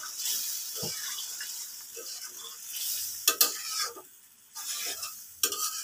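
A spatula stirring papaya curry in a metal karahi on a gas flame, with several sharp scrapes and knocks against the pan (the loudest a little past the middle) over a hissing sizzle. Water has just been poured into the hot spiced papaya.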